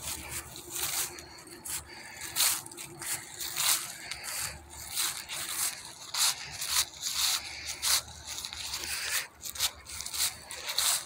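Irregular rustling and scraping, with short crackling scrapes coming several times a second.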